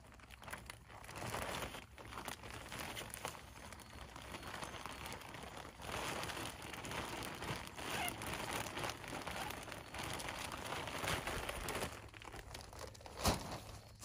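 Plastic bag of potting mix crinkling and rustling as it is handled, with a sharp knock near the end.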